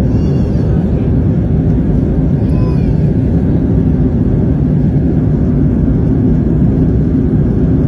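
Steady airliner cabin noise in flight: a constant low rush of jet engines and airflow, unchanging throughout.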